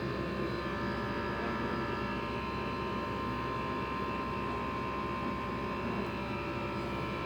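A steady mechanical hum with a few constant tones in it, holding an even level throughout.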